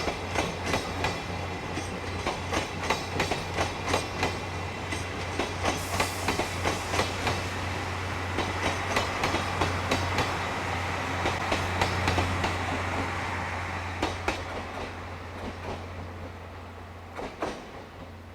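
A departing steam-hauled train, C57 locomotive and passenger coaches, rolling past with a run of wheel clicks over rail joints. The sound fades away over the last several seconds, with a few last clicks near the end.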